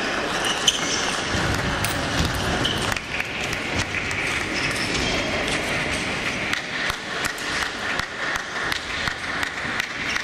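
Table tennis hall ambience: celluloid ping-pong balls clicking off bats and tables from several games at once, over a steady hall murmur, with one louder knock under a second in.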